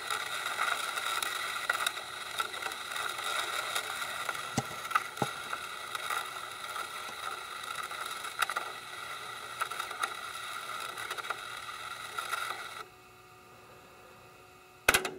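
Cassette deck transport running a head-cleaning and demagnetizing cassette with a spinning magnet on its reverse side: a steady whir with a few light ticks, which stops abruptly about 13 seconds in as the cycle ends. One sharp click comes near the end.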